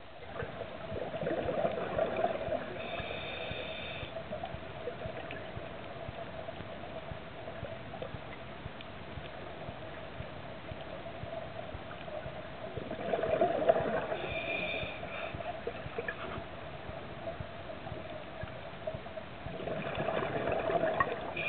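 Scuba breathing heard underwater: three swells of gurgling exhaled bubbles from a diver's regulator, at the start, around the middle and near the end, two of them followed by a short high hiss, over a steady hum.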